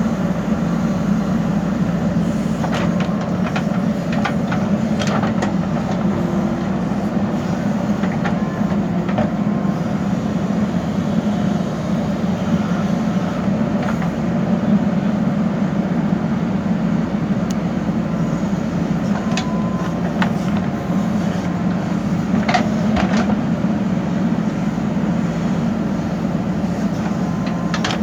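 Backhoe loader's diesel engine running steadily as it works, with a few short sharp knocks and clanks scattered through.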